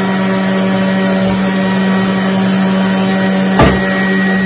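Electric juicer motor running with a steady hum. There is a single short knock about three and a half seconds in.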